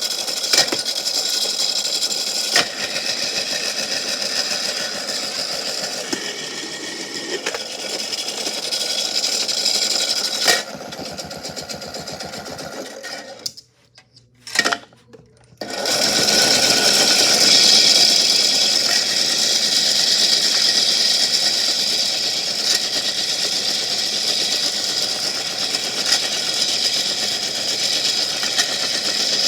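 Surf washing over rocks and shells, with a dense clattering of pebbles and shells rolled by the water. About halfway through the sound drops out almost completely for a couple of seconds, then comes back.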